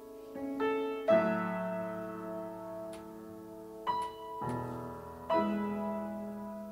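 Solo piano playing slow chords that ring and fade, with fresh chords struck about half a second in, about a second in, near four seconds and just after five seconds: the closing bars of the accompaniment to a tenor-and-piano art song, after the voice has finished.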